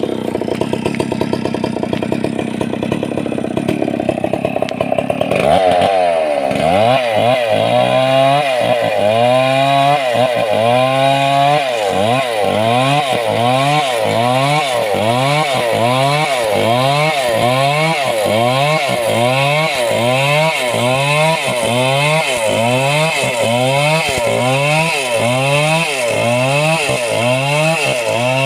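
Two-stroke chainsaw running, then from about five seconds in cutting into white teak wood, its engine note rising and falling over and over, about once a second, as the chain loads and frees in the cut.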